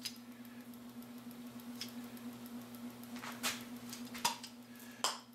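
Caulking gun squeezed to lay a bead of glue along a 2x4: a few scattered clicks and small knocks from the gun and the wood over a steady low hum.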